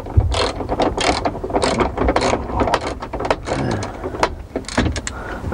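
Hand ratchet wrench clicking in quick, irregular runs as bolts are worked out of the steering column brackets.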